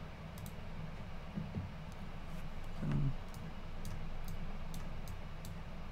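Soft computer mouse clicks, about two a second and unevenly spaced, over a low steady room hum; a short low hum of a voice about three seconds in.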